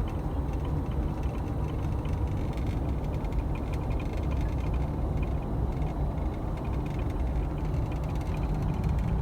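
Vehicle driving on a dusty dirt track, a steady low rumble of engine and road noise.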